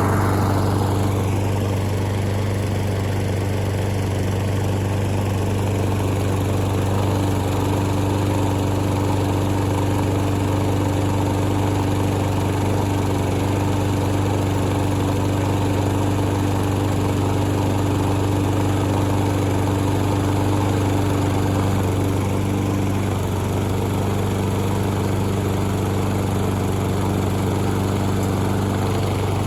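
Push lawn mower running steadily while it mows, pushed along by a power chair. The tone shifts slightly about 22 seconds in.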